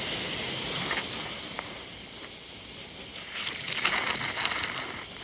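Rain falling in gusty wind, with a stronger gust rushing in for about a second and a half near the end.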